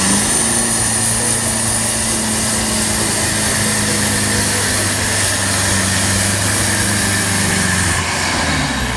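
Off-road vehicle's engine running at steady, held revs, easing off near the end.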